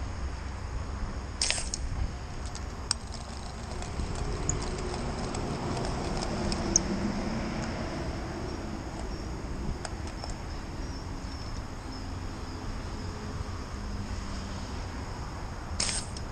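Outdoor background by a river: a steady low rumble with a vehicle passing over the bridge around the middle, faint steady insect tones, and a few sharp clicks of handling near the start and end.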